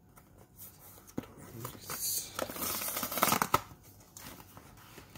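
Cardboard box of buckwheat groats being torn open along its perforated strip: a stretch of ripping and crackling with a few sharp clicks, loudest about three seconds in.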